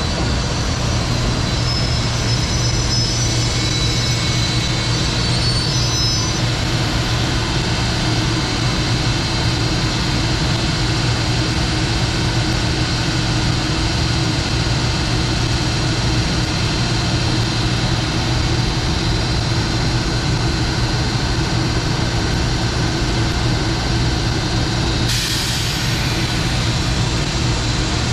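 JR Freight EF210 electric locomotive moving slowly past at close range, with a steady low hum. Faint high whistles sound for the first few seconds, and a sudden hiss starts about 25 seconds in.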